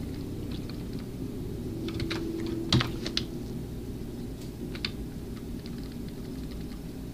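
Computer keyboard keys clicking in irregular, scattered keystrokes, with one sharper click near three seconds in, over a steady low hum.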